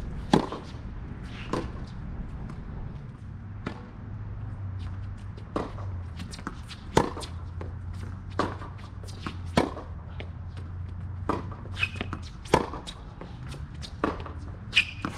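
Tennis rally on a hard court: the sharp pops of racket strings striking the ball, with quieter ball bounces and footsteps in between. The loudest hits come every two to three seconds.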